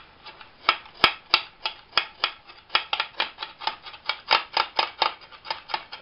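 Kitchen knife chopping fresh dill on a chopping board: a quick run of sharp taps as the blade strikes the board, about three a second at first and quickening to about six a second.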